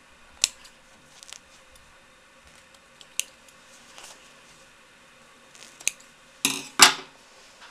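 Small scissors snipping the stitches that hold a lining inside a felted beret, unpicking it: sharp single snips about half a second in, near three seconds and near six seconds, then two louder, longer cuts close together near the end.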